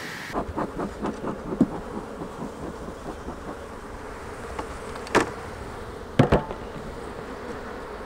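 Honey bees buzzing steadily around an open hive. Wooden hive parts knock against each other as the hive is handled: a quick run of light knocks in the first two seconds, then two louder knocks about five and six seconds in.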